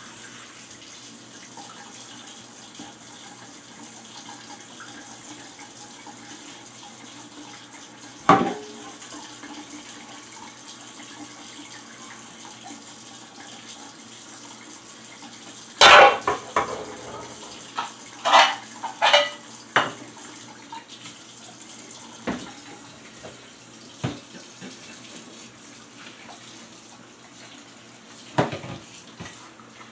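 Kitchen tap running into a stainless steel sink as dishes are rinsed one at a time under the stream, with scattered clanks of a pan and a metal bowl against the sink. The loudest clatter comes about halfway through, with a burst of knocks just after.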